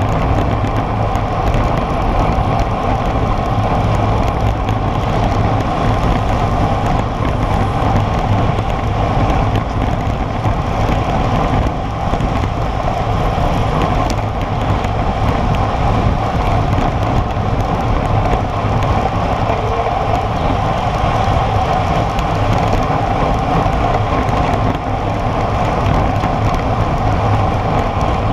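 Steady wind rush and road noise on the microphone of a camera mounted on a road bike's handlebars, the bike rolling on asphalt at about 45 km/h.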